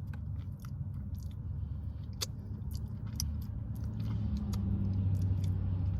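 Close-up chewing and biting of food, with small wet clicks and smacks scattered through, over a steady low hum that grows a little louder in the second half.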